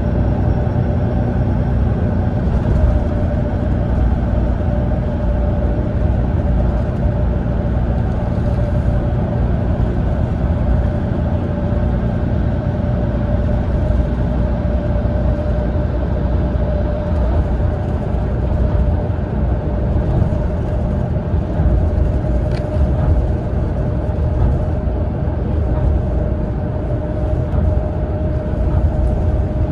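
Cabin noise of a Mitsubishi Fuso Aero Ace coach on the move: steady engine drone and tyre-and-road rumble, with a constant whine over it.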